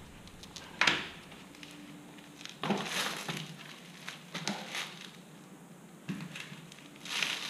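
Gloved hands working a socket wrench on a motorcycle's oil drain plug: five short scraping, clinking handling noises.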